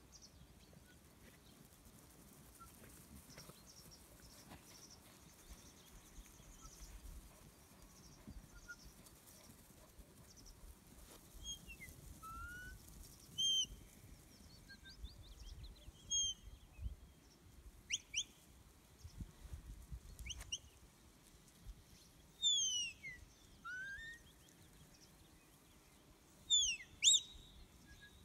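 Sheepdog handler's whistle commands: a run of short, sharp whistles, some falling and some rising in pitch, starting about twelve seconds in, with the loudest pair near the end. Faint birdsong and light wind lie underneath.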